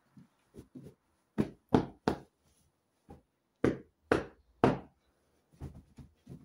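Pillow being beaten out by hand: two runs of three loud whacks, each run about a second long, with softer pats and rustling between them.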